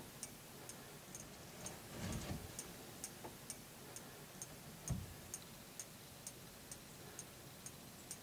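Faint, regular high ticking, a little over two ticks a second, with soft low thumps about two seconds in and again, louder, about five seconds in.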